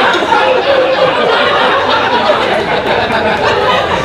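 Comedy club audience laughing, many voices at once.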